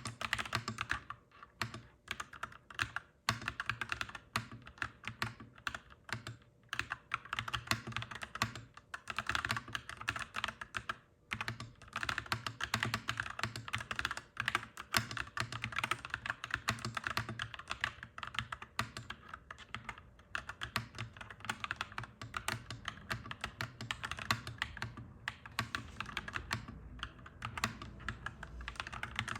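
Clacky mechanical keyboard being typed on in rapid, continuous runs of keystrokes, with brief pauses every few seconds, over a faint steady low hum.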